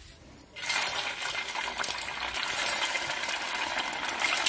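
Spinach vada (palak vada) mixture being dropped into hot oil in a steel kadai: the oil starts sizzling and crackling a little over half a second in, then fries steadily with a dense crackle.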